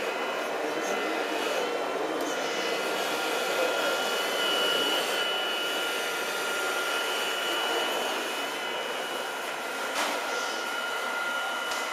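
Electric motors of a radio-controlled model wheel loader (a Liebherr L576 model) whining steadily, two high tones drifting slightly in pitch over hall background noise. A sharp click about ten seconds in.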